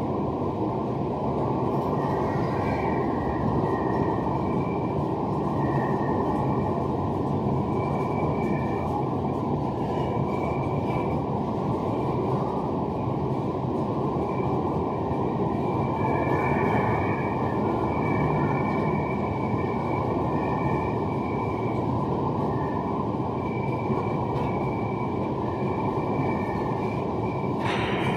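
Loaded freight hopper wagons rolling past in a steady rumble of steel wheels on rail, with faint high squeals coming and going. There is a sharp clank near the end.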